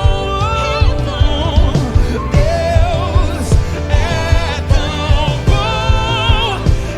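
Gospel worship song: a singer holding wavering notes with vibrato over a band with a steady beat.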